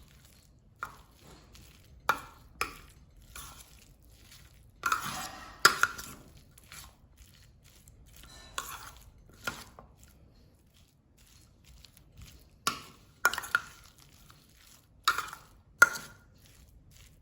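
A filling of mashed pumpkin and chickpeas being stirred with a utensil. It knocks and scrapes against the bowl in irregular clusters of sharp clacks, with a longer scraping stretch about five seconds in.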